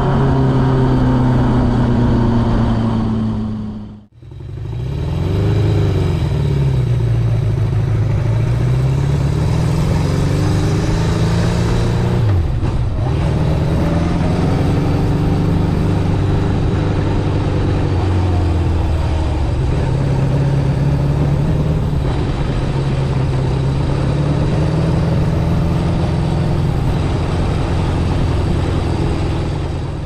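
Honda CB750 Four's air-cooled inline-four engine running through its exhaust. It idles with throttle blips that rise and fall in pitch. The sound fades out briefly about four seconds in, then comes back.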